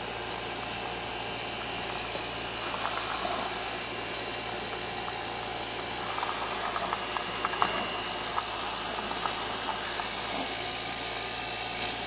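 Refrigerator compressor, its hermetic shell cut open, running with a steady hum while its motor churns the oil bath. Faint crackling ticks of oil splattering and foaming inside, busiest in the middle seconds.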